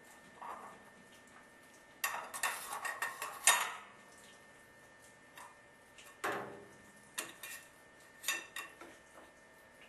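Metal pipe fittings of a dielectric union clinking and knocking as they are handled and fitted together with the plastic insert. There is a dense run of clatters about two seconds in, then a few single clinks.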